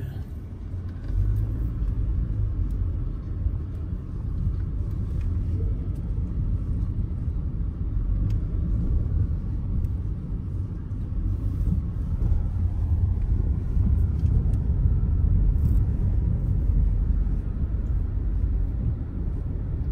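Moving car's road and engine noise: a steady low rumble.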